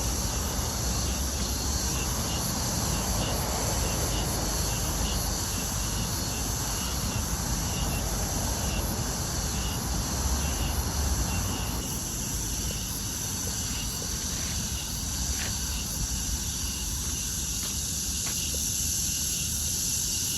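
Insects chirring steadily outdoors in high, unbroken bands of sound, over a low rumble that eases somewhat about two-thirds of the way through.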